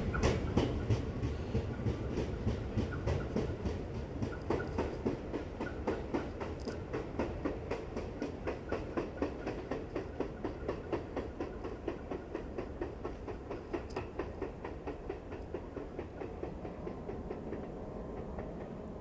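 R46 subway train pulling away, its wheels clicking over the rail joints in a fast, even rhythm over a low rumble. The sound fades steadily as the train moves off.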